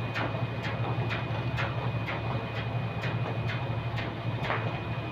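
Steady low drone of a ship's engine, with light, evenly spaced taps on the steel deck about two a second.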